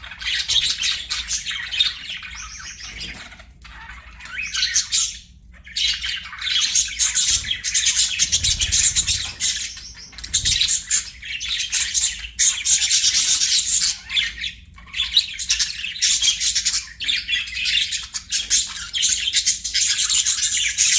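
Budgerigars chirping and chattering almost without pause: quick high-pitched warbles and squawks.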